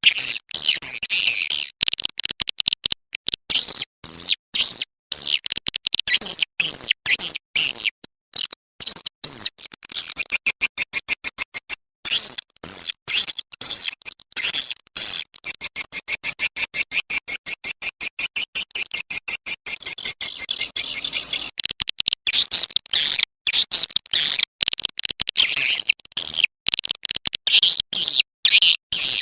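Swiftlet call recording: a dense, fast run of high-pitched chirps and twitters in quick pulses with brief breaks, the lure call played to draw swiftlets into a swiftlet house to roost.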